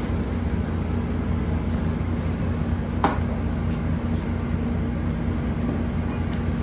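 Ground beef sizzling in a hot pot, a steady noise over a constant low hum, with one sharp click about three seconds in.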